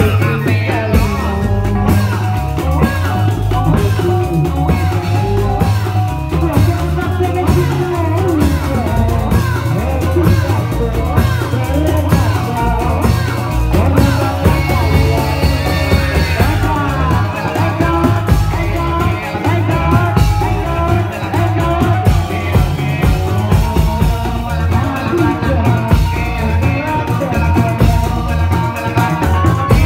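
Loud Reog Indramayu band music: a sung melody over drums with a steady pulsing beat.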